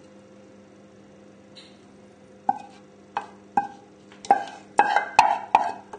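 A spoon knocking against a saucepan to shake out the last of a thick cheese sauce: sharp ringing knocks that start about halfway in and come quicker and louder, about eight in all.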